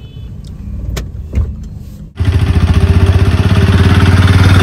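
Small pickup truck's engine idling close by, a loud, steady, fast chugging pulse that starts abruptly about two seconds in. Before it there is quieter car-cabin hum with a couple of clicks.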